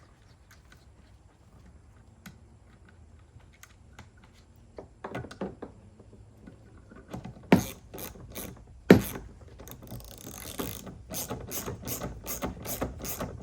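A hand ratchet clicking as screws are driven into the kayak's quick release bracket: faint scattered clicks at first, two sharp knocks about halfway through, then a fast, even run of ratchet clicks toward the end.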